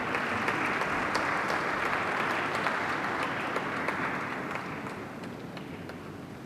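Audience applauding: many hands clapping together, at full strength at first and fading out near the end.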